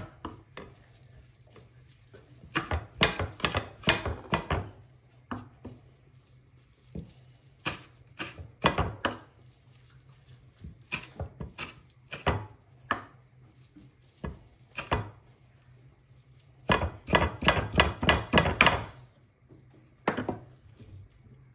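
Kitchen knife chopping fresh parsley on a wooden cutting board: runs of quick knocks of the blade against the board, broken by pauses, with the longest, densest run near the end.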